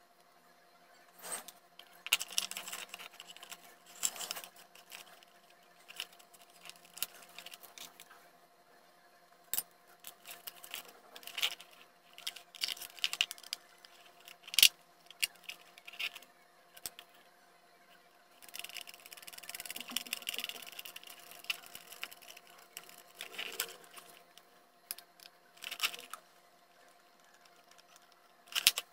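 Hands handling a small transformer, wires and a plastic box on a table: scattered clicks, taps and scrapes with quiet gaps between, and a longer stretch of scraping about two-thirds of the way through. A faint steady tone runs underneath.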